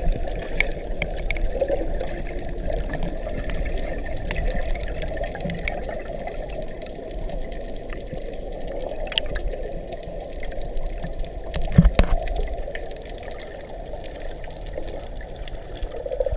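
Muffled underwater water noise heard through a submerged camera's waterproof housing, steady and low, with scattered small clicks and a louder knock about twelve seconds in.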